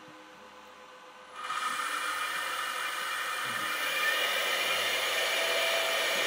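5 hp Columbo CNC router spindle starting about a second and a half in and spinning up under inverter control toward about 6,000 rpm (just over 100 Hz). It makes a steady whirring hiss, mostly from its cooling fan, with a few faint steady whining tones, getting a little louder as it speeds up.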